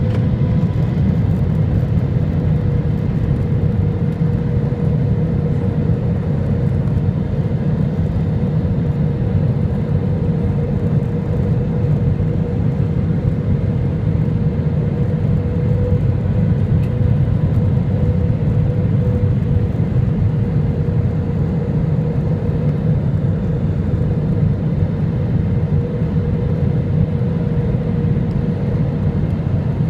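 Steady cabin noise inside an Airbus A320 on final approach: a low rumble of engines and airflow, with a steady mid-pitched hum running through it.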